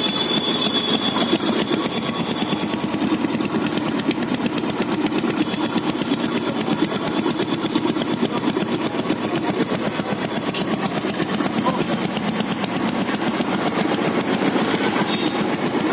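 Royal Enfield Bullet's single-cylinder engine running steadily at idle.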